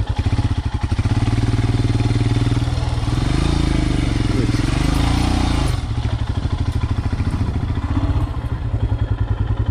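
Royal Enfield Himalayan's single-cylinder engine running as the bike is ridden slowly over rough grass. The revs rise about a second in and rise and fall for a few seconds, then drop back suddenly about six seconds in to a slow, low-rpm chug.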